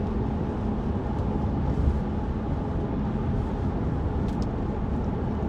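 Steady low rumble of engine and road noise heard inside a car's cabin.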